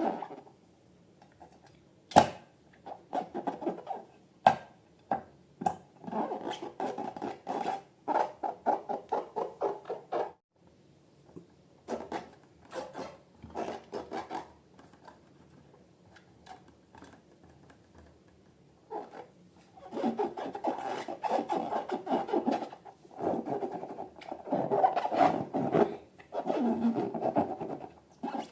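Hands rubbing and squeezing rubber balloons and slime, heard as stretches of crackly, squeaky rubbing broken by short pauses. There is a sharp click about two seconds in.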